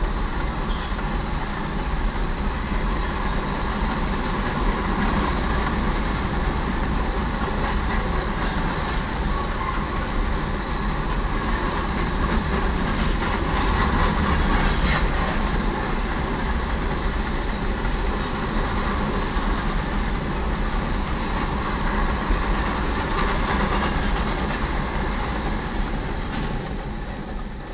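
Freight train rolling past a grade crossing: a steady rumble and rattle of railcar wheels on the rails. It drops off near the end.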